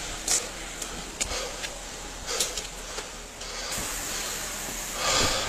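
Body-worn police camera rubbing and knocking against the wearer's uniform as he moves, a few scattered clicks over a steady outdoor hiss, with a louder rush of noise near the end.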